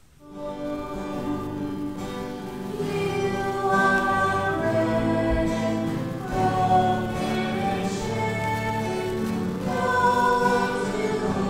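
Offertory hymn sung by a choir with instrumental accompaniment, starting at once out of silence and moving in long held notes.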